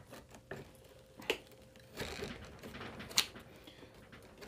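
Faint handling noise with small sharp metallic clicks, two clear ones about a second in and again near three seconds in, as a Yamaha Zuma scooter's handlebar mount is lowered and set back onto the steering stem by hand.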